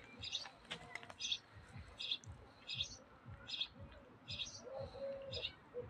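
A bird chirping over and over, one short high chirp about every 0.8 seconds at an even pace.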